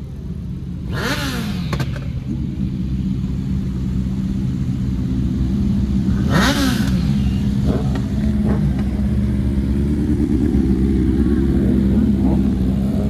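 Motorcycle engines running at idle, with a throttle blip about a second in and another about six seconds in, each rising sharply in pitch and falling back.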